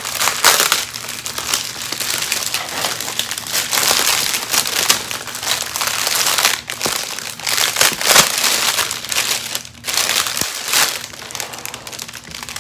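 Clear plastic wrapping crinkling loudly and steadily as it is handled and pulled off a cardboard tube, with a few brief pauses.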